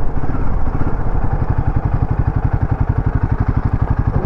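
Royal Enfield Himalayan 450's single-cylinder engine running at low revs as the bike slows toward a stop, an even, rapid beat of exhaust pulses. Wind and road noise fade in the first second.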